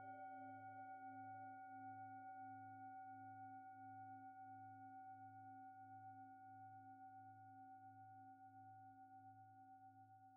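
Faint final note of the outro music ringing out: a bell-like tone with several overtones, fading slowly, with a slow pulsing wobble in its low end.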